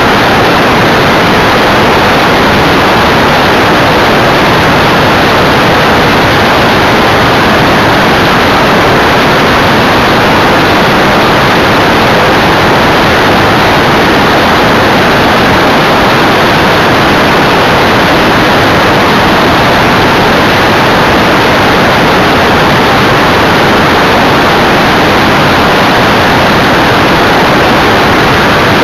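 Loud, steady rushing of airflow over a camera mounted on the tailplane of a Eurostar light aircraft in flight, with the aircraft's engine and propeller blended into the noise.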